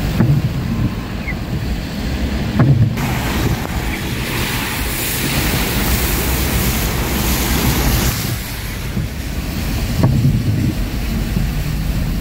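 Rushing water hiss in heavy rain on a flooded street. It swells in about three seconds in and drops away about eight seconds in, over a steady low rumble of wind on the microphone.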